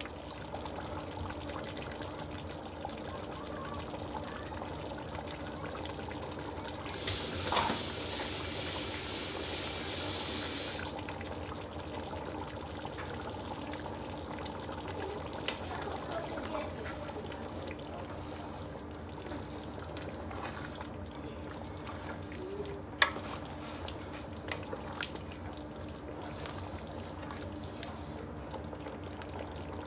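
Water running for about four seconds, over a low steady hum, with a few sharp clicks later on.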